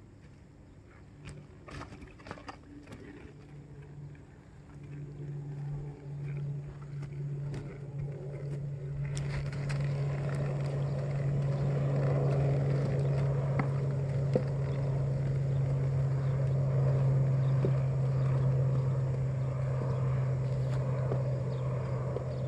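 A motor engine running at a steady low hum, growing louder over the first ten seconds or so, with a few sharp knocks in the first few seconds.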